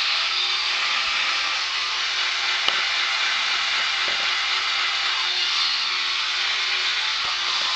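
Electric toothbrush running with a steady high buzz, with a few faint clicks over it.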